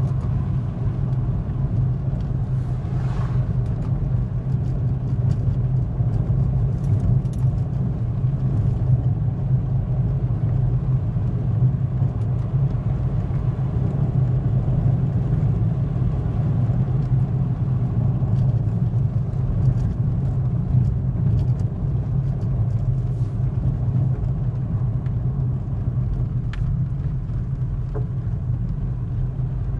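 A car driving at a steady pace, heard from inside the cabin: a constant low hum of engine and road noise that holds even throughout.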